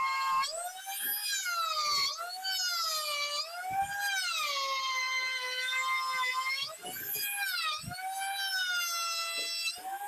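Handheld trim router running under load as it cuts the first shallow pass of a concealed-handle pocket in a door panel, guided around a plywood template. Its high whine keeps sagging and recovering in pitch as the bit is pushed through the cut.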